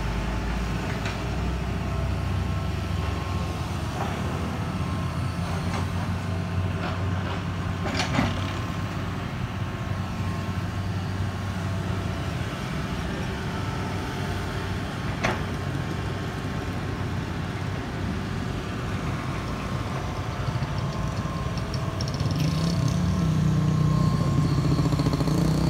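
Hitachi hydraulic excavator's diesel engine running steadily under work, with a few sharp knocks scattered through. The engine noise grows louder and higher near the end.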